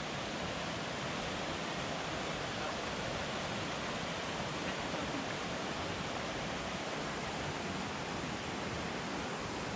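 Waterfall pouring into a pool, a steady rush of falling water.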